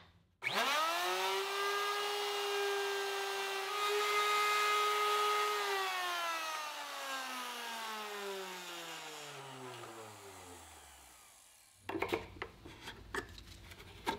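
Electric plunge router switched on and running at a steady speed while routing a hinge mortise into the door edge through a template jig, then switched off and spinning down with a falling whine over about five seconds. A few sharp clicks near the end, from pliers pulling the jig's brads.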